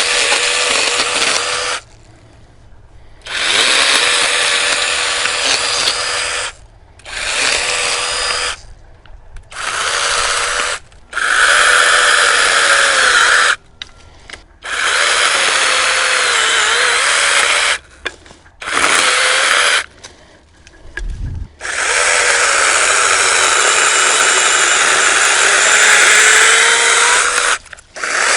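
Brushless 6-inch battery mini chainsaw cutting through a branch in repeated bursts of one to six seconds, its motor whine wavering as the chain bites into the wood. A single low thump comes about two-thirds of the way through.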